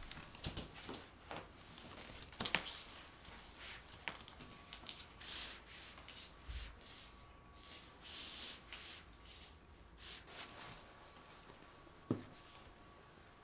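Soft rustling and rubbing of a tufted rug as it is unfolded and smoothed out by hand over the floor, with a single dull knock near the end as a stack of books is set down on it.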